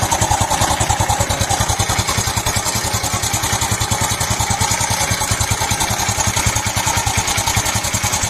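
Honda Super Cub's bored-up single-cylinder four-stroke engine idling steadily with an even, rapid beat. Behind it is an abnormal noise that the owner cannot yet place.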